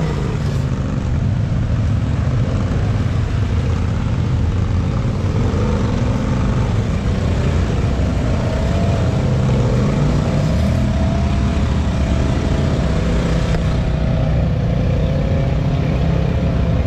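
Engines of lifted Polaris side-by-side UTVs running and revving in and out, their pitch rising and falling as they climb through deep mud.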